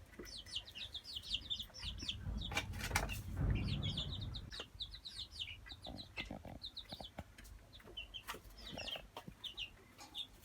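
Chicks peeping continuously, a stream of short, high, falling cheeps several a second. A low rumble with a few knocks runs beneath them from about two to four seconds in.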